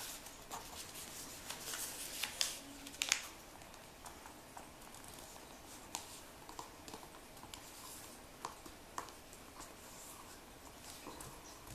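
A sheet of paper being folded by hand, rustling and crinkling softly as a crease is pressed flat, with scattered faint ticks and scrapes. The rustling is busiest in the first few seconds and then thins to sparse small sounds.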